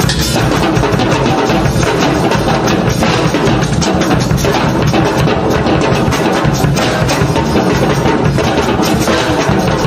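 Improvised drumming, loud, dense and continuous, with strikes following close on one another throughout.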